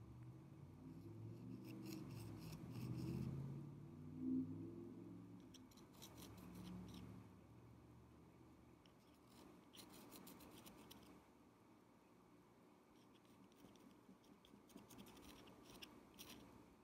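Faint, fine rapid ticking and light scraping from a thin metal rod worked against a glass candle jar, coming in four short spells, with a soft low rumble of handling in the first few seconds.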